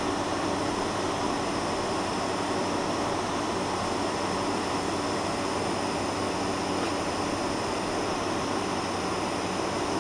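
Steady cabin noise inside a Boeing 747-400 taxiing, its four engines running at low taxi power: an even hiss with a faint low hum and no changes.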